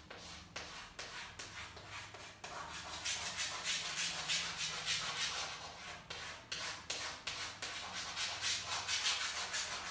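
Chalk scratching on a chalkboard in quick back-and-forth hatching strokes, as a drawn shape is shaded in.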